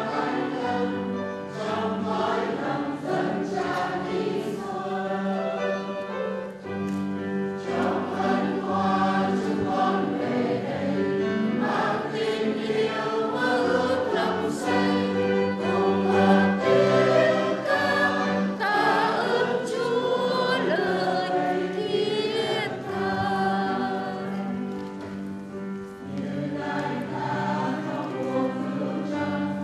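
Church choir singing a hymn, with many voices holding long notes over sustained low chords.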